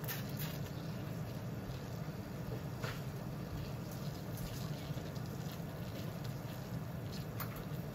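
Water boiling in a stainless steel pot on a gas stove, a steady bubbling over a low hum, with a few small plops and splashes, one near the start as a piece of root vegetable is dropped in by hand.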